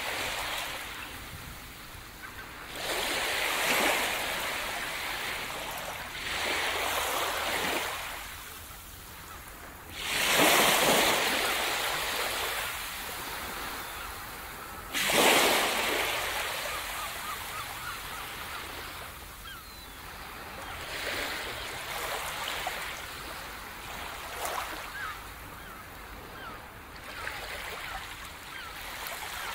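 Sea waves breaking on a sandy beach and washing up the shore one after another, each surge a rushing hiss that swells and then fades. The biggest breaks come about ten and fifteen seconds in, the second one sudden.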